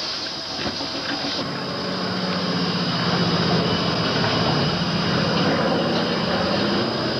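Old South Shore Line electric interurban car humming and rumbling steadily, the hum getting louder about two seconds in.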